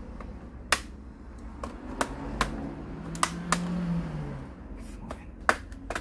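Plastic snap clips of an Asus X501A laptop's case clicking and popping as the shell is pried apart with a thin flat tool: about eight sharp clicks at uneven intervals. A low hum lasts about a second and a half in the middle.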